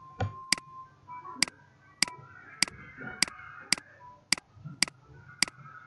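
Computer mouse button clicked nine times in a steady run, about one sharp click every half second or so, each click pressing an on-screen OK button that steps a counter up.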